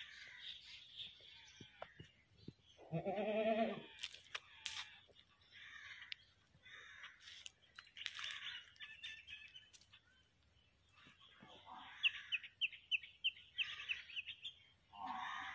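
A goat bleats once, a loud wavering call about three seconds in. Small birds chirp and trill throughout.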